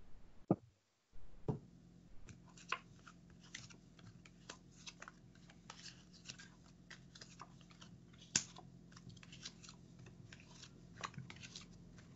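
Faint, irregular small clicks and taps, a few a second, from tarot cards and runes being handled and laid out, with a slightly louder tap about eight seconds in.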